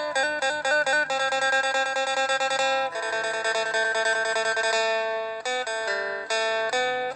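Background music: a plucked string instrument playing a quick melody of bright, ringing notes.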